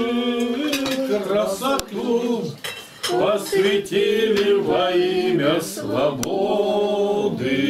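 Several voices singing a Russian hymn unaccompanied, in held, slowly changing notes. A couple of sharp clinks of tableware are heard, one near the end.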